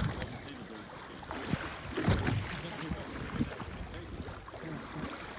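Sea and wind noise heard from a small boat on choppy water, with wind buffeting the microphone and a louder rush about two seconds in. Muffled voices are faintly audible underneath.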